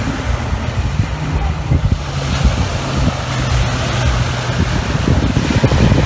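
Black Sea surf breaking and washing up a pebble beach, with heavy wind rumble on the microphone.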